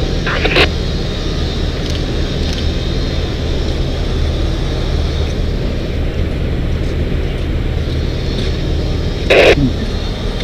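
An engine running steadily: a continuous low hum. A brief burst of noise comes about half a second in, and a louder short burst comes near the end.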